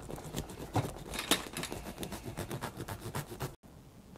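Serrated knife sawing into the crust of a round loaf of bread: a quick series of short, scratchy rasping strokes that stop abruptly about three and a half seconds in.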